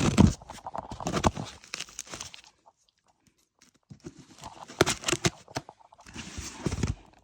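Handling sounds from a cardboard box of plastic smoke alarms: rustling and scraping with scattered clicks and knocks. It stops for about a second and a half midway, then resumes.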